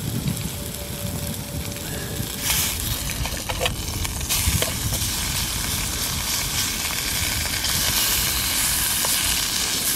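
Steak sizzling in a pan on a camping gas stove. It is turned over with a fork about three and a half seconds in, with a few light clinks, and the sizzle grows louder once the raw side meets the hot pan.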